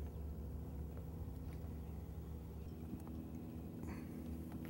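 Bass boat's electric trolling motor running with a steady low hum; a second, higher hum joins a little past halfway, and a few faint ticks come through.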